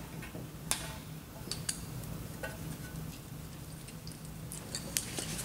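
Scattered sharp metallic clicks and taps of pliers working the knockouts out of a sheet-metal electrical meter base, at irregular intervals over a faint steady low hum.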